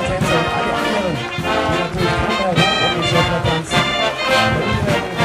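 Brass band playing music with a steady beat, accompanying the coopers' dance.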